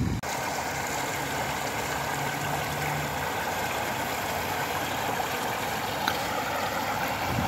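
Floodwater rushing steadily over flooded grass and a footpath: a constant, even hiss of fast-flowing water.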